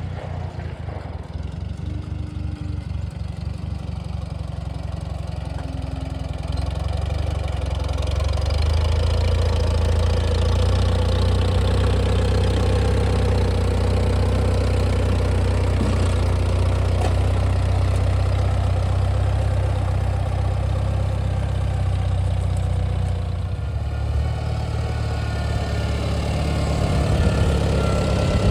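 Small Farmall tractor's four-cylinder engine running steadily while plowing a garden row. It grows louder about eight seconds in and drops back a little near the end.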